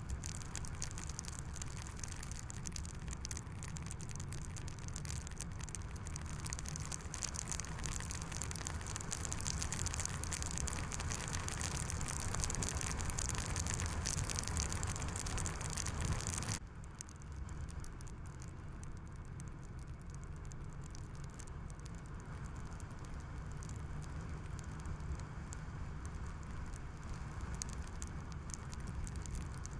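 Skoda Kodiaq driving: steady tyre and wind noise, a low rumble under a bright hiss with a pattering, rain-like texture. A little past halfway the hiss drops off abruptly and the noise goes on quieter.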